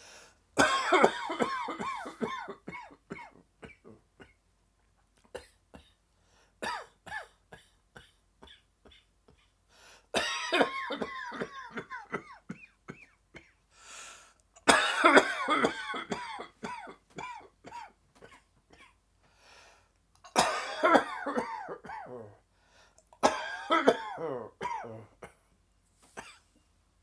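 A person's dry, tickly coughing fit: about six bouts, each a quick string of harsh coughs, with short, fainter catches in the pauses between.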